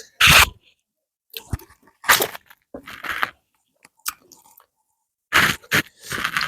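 Close-miked eating sounds: chewing and mouth smacking on rice fufu with okra soup, in about six separate loud bursts, three of them close together near the end.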